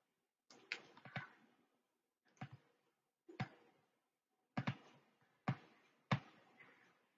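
Faint computer mouse clicks: about eight short, sharp clicks at irregular intervals, some in quick pairs.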